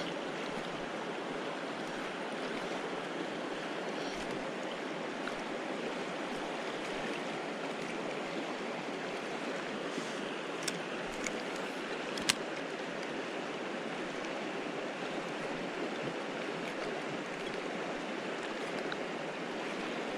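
River water rushing steadily over riffles, with a couple of brief sharp clicks around the middle.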